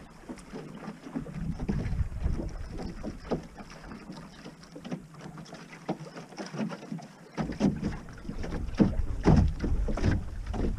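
Wind buffeting the microphone on a small wooden sailing skiff under way, with water splashing against the hull. The wind rumble eases for a few seconds in the middle and comes back strongly after about seven seconds.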